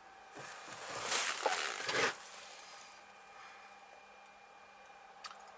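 Rustling and scraping handling noise for about two seconds, then a faint steady hum with a single short click near the end.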